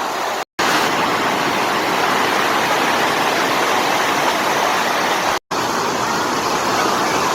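Rushing water: a steady, even rush, cut to silence twice for a split second, about half a second in and again after about five seconds.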